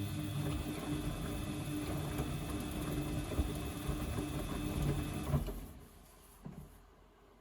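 Washing machine motor turning the drum for about five seconds, a steady hum with irregular crackling through it, then stopping abruptly. The crackle is the suspected fault: others have suggested worn motor brushes or the motor itself going bad.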